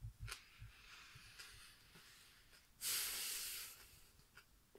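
A person chewing a mouthful of unpeeled banana: a few soft chewing thuds at first, then a loud breath out through the nose lasting about a second, about three seconds in.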